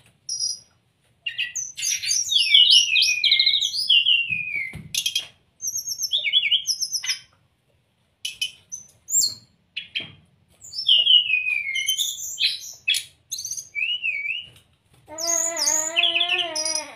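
Brown-chested jungle flycatcher singing: bursts of quick, high, falling notes separated by short pauses. Near the end a lower, wavering call with many overtones joins in.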